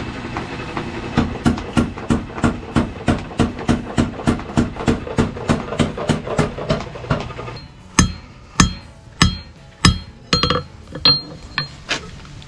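Small hand hammer striking hot 1-inch round mild steel on an anvil, drawing the end down to a point. It starts with a quick, even run of about three blows a second for some seven seconds. After a brief pause come slower, louder blows about every half second, some of them ringing.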